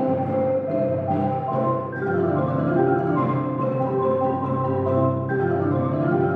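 Marimba ensemble playing an arrangement of a classical symphony, a continuous texture of held chords over steady low notes.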